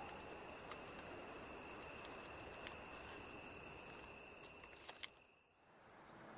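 Faint night ambience: a steady high insect-like trill over a soft hiss, with a few faint ticks, fading out about five seconds in.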